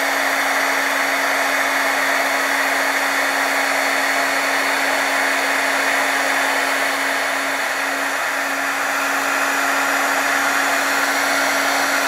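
Electric heat gun running steadily, its fan giving an even rush of air over a low hum, while it shrinks heat-shrink tubing over a cable.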